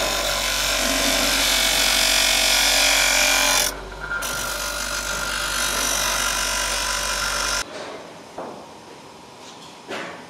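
Electric power tool running at full speed with a steady motor hum. It breaks off briefly about four seconds in, runs again, then stops about seven and a half seconds in, leaving a few light knocks.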